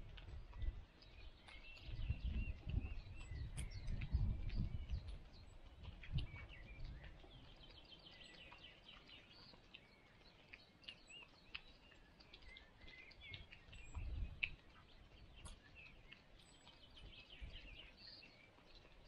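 Small songbirds chirping and trilling on and off throughout, with low rumbles that are loudest about two to five seconds in and again near fourteen seconds.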